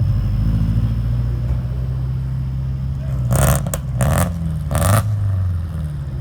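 A car engine running and revving, its low drone rising and falling, with three short, loud blasts in quick succession in the second half.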